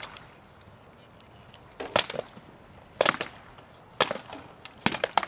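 Rattan swords striking shields and armour in armoured sword-and-shield sparring: sharp wooden clacks, a burst at the very start and then four more clusters roughly a second apart.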